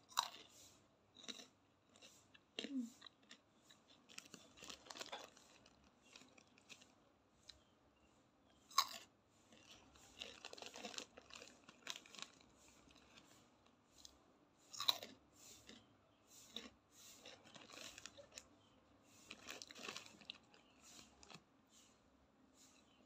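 Crunchy dried macaroni snack being bitten and chewed close to the microphone: a run of sharp crunches and crackles, the loudest just at the start, about nine seconds in and about fifteen seconds in.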